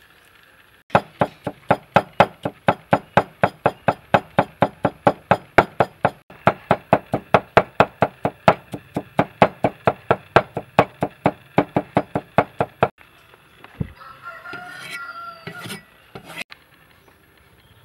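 Cleaver chopping garlic on a wooden chopping block in a fast, even rhythm of about four strokes a second, with a short break midway. Near the end a rooster crows once for about two seconds.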